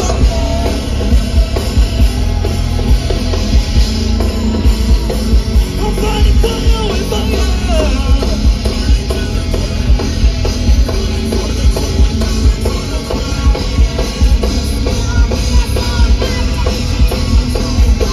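Live rock band playing loud: drum kit keeping a steady beat under electric guitars and bass.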